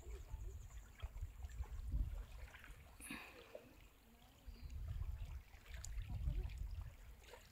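Waterside ambience: gusty wind rumbling on the microphone, with a soft trickle and lapping of shallow water. The rumble swells about two seconds in and again in the second half.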